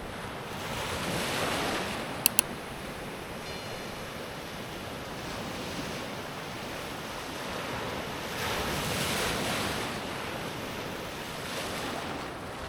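Ocean surf breaking and washing up the beach at high tide, a steady rush that swells twice, about a second in and again about eight to ten seconds in. A sharp double click sounds about two seconds in.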